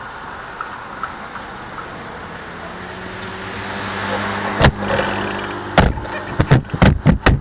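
A pickup truck driving past, its engine and tyres growing louder over a couple of seconds and then fading as it moves off. Several sharp knocks come close together near the end.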